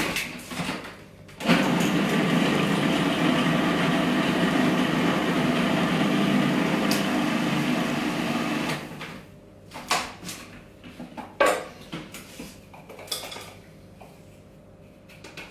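Food processor running steadily for about seven seconds, blending flour, sugar and cold butter into a sandy shortcrust mix. Then it stops, and there are a few sharp clicks and knocks as its plastic bowl is handled and lifted off the base.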